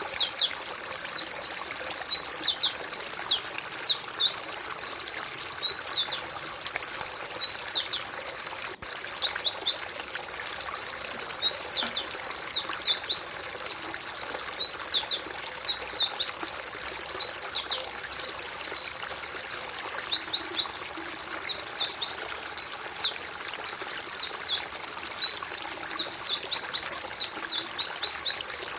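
White-eyes (pleci, Zosterops) chirping without pause: a dense run of quick, high, falling notes from several birds at once, over a steady trickle of running water.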